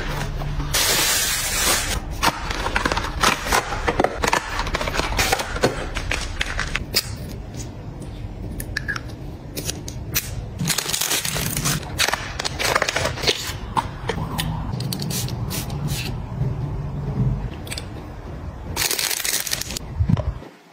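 Close-up handling of packaging: cardboard box flaps and air-cushion plastic wrap crinkling and rustling, with many small clicks and taps from cosmetic tubes and boxes. Three longer bursts of rustling come near the start, about halfway and near the end.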